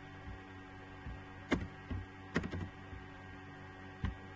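A handful of sharp computer-keyboard key clicks, mostly clustered in the middle with one more near the end, over a steady electrical hum.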